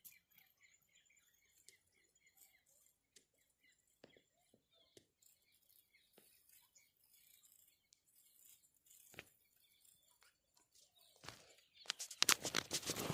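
Mostly faint: scattered light ticks and a faint, quick chirping in the first few seconds. Near the end, loud rustling and crackling of grass and dry ground close to the microphone begins.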